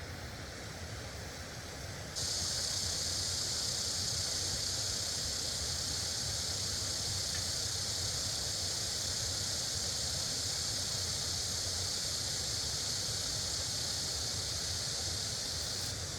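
Rushing water, a steady noise with a low rumble. About two seconds in a strong high hiss comes on suddenly, holds level, and stops abruptly near the end.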